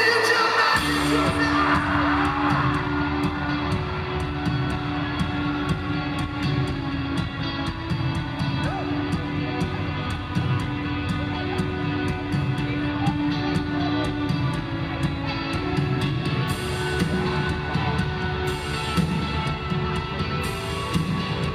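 Rock band playing live: sustained chords over a steady drum beat, with the bass and drums coming in about a second in.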